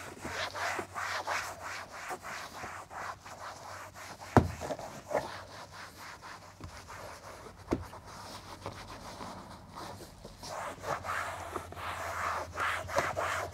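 Microfiber towel rubbing and wiping cleaner foam off a car's interior door panel in repeated short strokes. Two sharper knocks come about four seconds in and near eight seconds.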